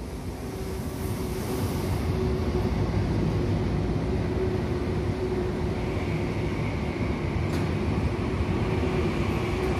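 Frecciarossa high-speed electric train moving slowly through the station: a steady running noise with a sizzling quality and a held hum, and a higher whine joining about six seconds in.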